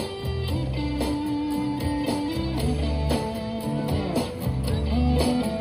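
Guitar-led instrumental backing track of a pop ballad playing through a PA speaker during a break between sung lines, with sustained notes over a steady bass and no vocals.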